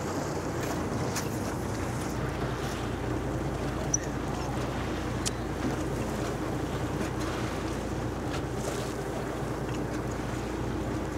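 Fishing boat's engine running steadily, with sea water washing against the hull and wind on the microphone. A sharp click stands out about four seconds in.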